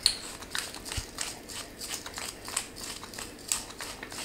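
Pepper mill being twisted to grind pepper: a run of quick dry clicks, about four a second.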